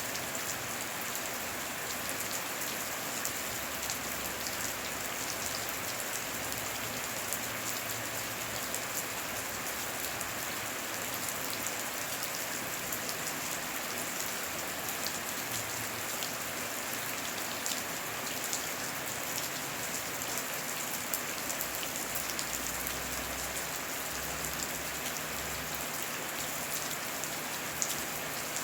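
Heavy rain falling steadily, with many individual drops ticking sharply over a continuous hiss.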